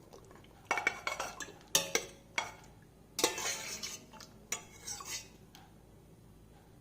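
Metal utensil clinking and scraping against a metal cooking vessel, in several short clusters of knocks and scrapes, as when stirring or ladling soup.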